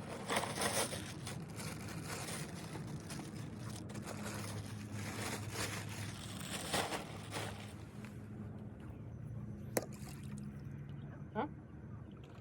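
Water sloshing and splashing around a fishing boat over a low, steady motor hum, easing off after about eight seconds. There is a sharp click about ten seconds in.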